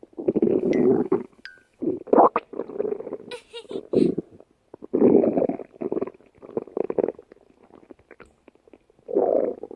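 Human stomach growling: rumbles come in several bursts, each a second or two long, with short pauses between.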